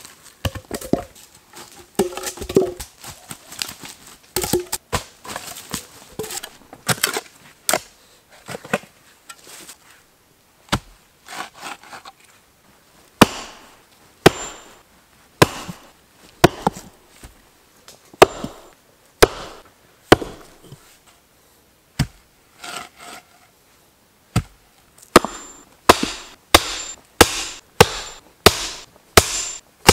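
A sledgehammer driving a short wooden post into the earth, heavy single blows about a second apart, then a quick run of about eight strikes near the end, each followed by a faint high ring. Before the hammering, irregular knocks and scrapes of wood and digging.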